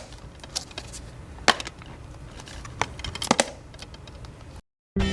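Plastic DVD case being handled, snapping open and shut: a handful of sharp clicks spread a second or more apart.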